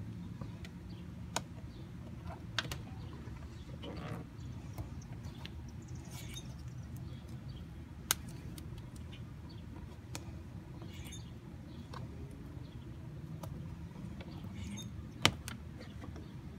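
Hand handling a plastic wiring connector at a car door: a few sharp clicks, the loudest near the end, over a steady low rumble, with faint bird chirps.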